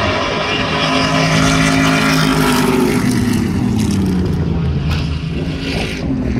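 Stadium Super Truck V8 engines running hard on the circuit, the pitch dropping about three seconds in as the trucks go past and away.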